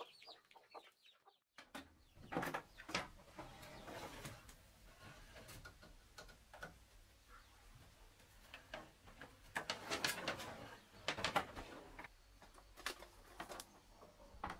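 Chickens clucking briefly. After a short gap come scattered knocks and rustles of a person handling gear on a wooden floor, loudest about ten seconds in.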